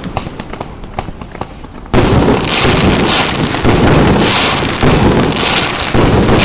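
A 1.1-inch, 56-shot consumer fireworks cake of silver chrysanthemum and glitter willow shells firing. It opens with a short lull of scattered crackles, then about two seconds in it resumes loud shots, about one a second.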